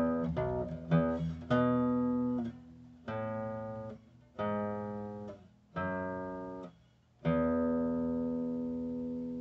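Bass guitar playing a bass line: a quick run of plucked notes, then four single notes about a second apart, each stopped short, and a last note left to ring and slowly fade.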